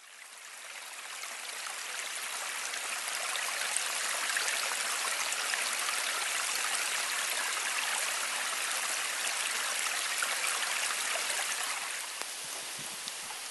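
A small stream running and trickling between icicled, snow-covered branches, a steady rushing of water that fades in at the start and eases off slightly near the end.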